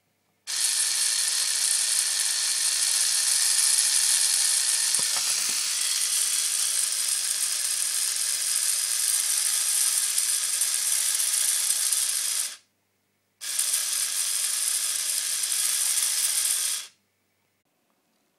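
Picooz micro helicopter motor driving a small plastic gear train on a scale-model coach chassis, running with a high, steady mechanical buzz. It cuts off suddenly about twelve seconds in, starts again under a second later, and stops about four seconds after that.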